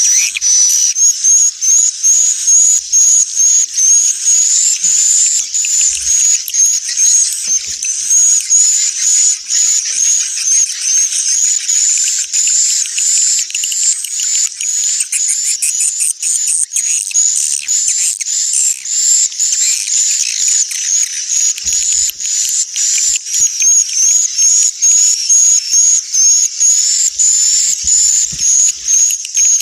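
Swiftlet calls: a dense, continuous high-pitched twittering of rapidly repeated chirps. This is a swiftlet 'inap' (roosting) lure sound, played in swiftlet nest houses to draw the birds in to roost.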